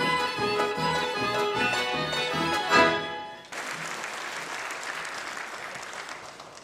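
Folk instrumental ensemble of violin, accordion and double bass playing the last bars of a tune, ending on a loud final accent about three seconds in. Audience applause follows at once and slowly fades toward the end.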